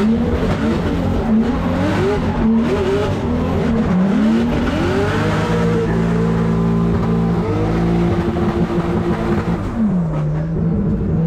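Drift car engine heard from inside the cockpit, its revs swinging rapidly up and down as the throttle is worked through a slide, with tyre squeal. The note then holds higher and steady, and near the end it falls and settles at a lower steady pitch as the car comes off the slide.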